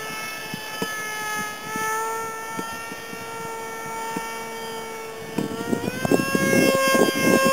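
RC delta-wing plane's motor and propeller whining at a steady pitch overhead, the pitch stepping up a little about five seconds in. Wind buffets the microphone over the last couple of seconds.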